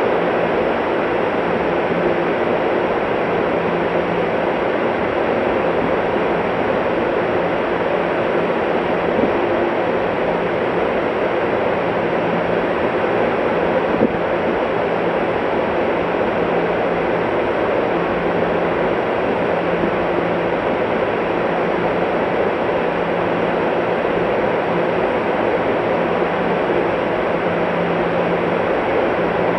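Steady, unchanging machinery-like noise of a railway station platform, with a faint low hum that comes and goes and one brief click about fourteen seconds in.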